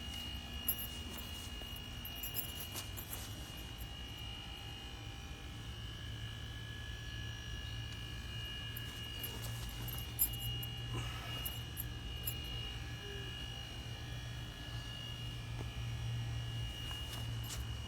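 A steady low electrical hum, stronger from about six seconds in, with a faint steady high whine above it and a few light clicks.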